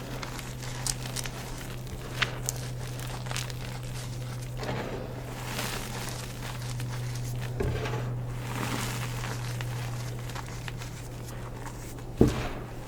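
Blocks of gym chalk being crushed, crumbling and crackling with many small crunches, denser through the middle. About twelve seconds in a piece snaps with one much louder sharp crack.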